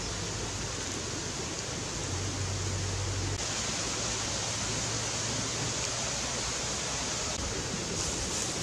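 Whole shrimp frying in oil on a hot stone: a steady sizzling hiss. The hiss turns a little brighter about three seconds in.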